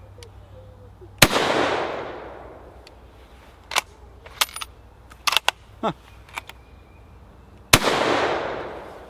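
Two shots from a Krag-Jørgensen 1912/16 carbine in 6.5x55, about six and a half seconds apart, each followed by a long echo fading over a second and a half. Between them come the clicks and clacks of the turn-bolt being worked to extract the spent case and chamber the next round, extracting easily with this ammunition.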